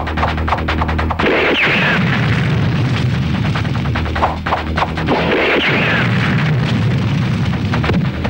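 Film explosion sound effects: after a rapid clatter in the first second, two long rumbling booms swell and fade one after the other, over an action score.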